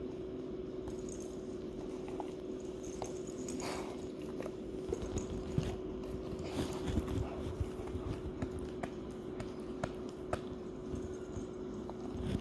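A dog chewing and gnawing on something in its mouth: irregular small clicks and crunches.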